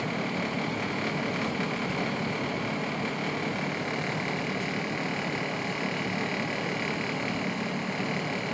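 PATCO rapid-transit train running at speed, heard from inside the front cab: a steady rumble of wheels on rail with a constant high whine over it.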